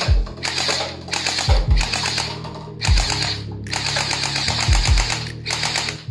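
Electric toy SCAR-L gel-ball blaster firing in a run of short bursts, each a fast mechanical clatter of rapid clicks. Background music with deep bass hits plays underneath.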